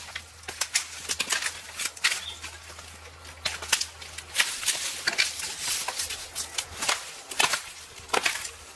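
Dry coconut fronds and fallen sticks rustling and snapping underfoot and in the hands, in a quick, irregular series of sharp cracks.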